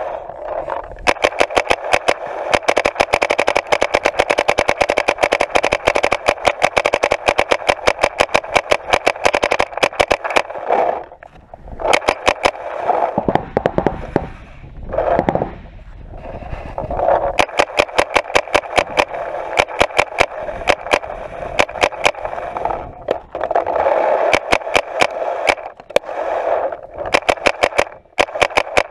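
Paintball markers firing in rapid strings of shots, many a second, broken by short pauses.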